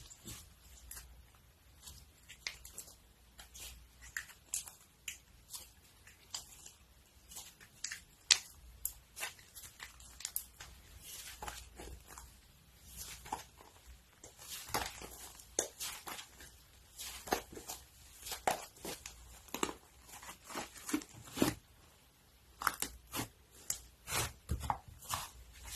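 Crunchy slime being handled close to the microphone, making irregular crackling clicks and pops, denser and louder in the second half.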